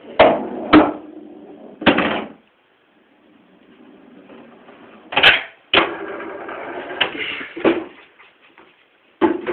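Pool balls clacking: a series of sharp knocks with short ringing tails. Three come close together in the first two seconds and several more from about five seconds in, with a faint rolling sound between.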